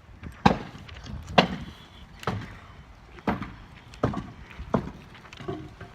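Sharp knocks on wood, about one a second and slightly uneven, like hammer blows as wooden concrete forms are knocked apart.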